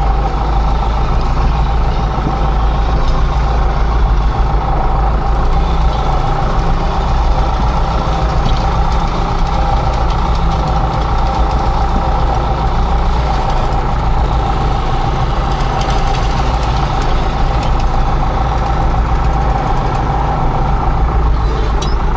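Engine of farm tilling machinery running steadily at a constant speed, a low hum with a steady whine over it.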